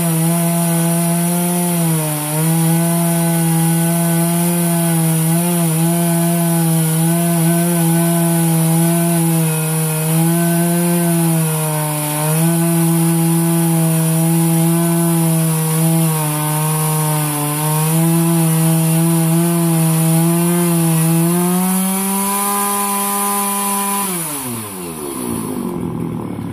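Vintage Jonsered 930 two-stroke chainsaw running at high revs while cutting through firewood logs, the engine pitch sagging slightly at times under load. Near the end the revs climb briefly, then fall away sharply.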